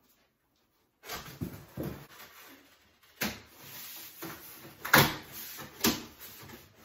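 Large cardboard sheets being handled and fitted onto pantry shelves: rustling and scraping that starts about a second in, with sharp knocks or slaps of cardboard against the shelf, the loudest about five seconds in.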